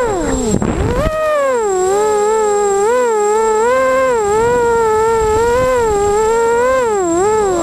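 Emax Nighthawk 250 quadcopter's 2280KV brushless motors and 5040 propellers, a buzzing whine that rises and falls in pitch with the throttle through hard turns. Just after the start the pitch drops steeply and climbs back about a second in. Heard from a camera riding on the quad itself.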